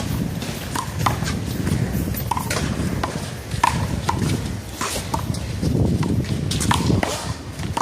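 A one-wall handball rally: a rubber handball is slapped by hands, hits the wall and bounces on the court. It makes an irregular series of sharp smacks, each with a short hollow ping.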